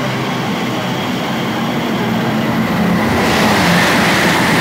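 Class 345 electric multiple unit moving along the platform: a steady low hum of its traction equipment under wheel-on-rail noise. About three seconds in, a hiss of higher noise comes up and the sound grows louder.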